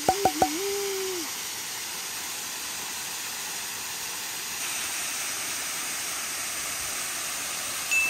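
Waterfall rushing steadily into a pool, slightly louder and brighter from about halfway through.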